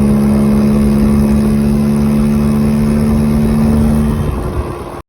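Yamaha BWs scooter engine running at a steady pitch under way, with the performance variator fitted. A little after four seconds the engine note falls away, and the sound cuts off abruptly just before the end.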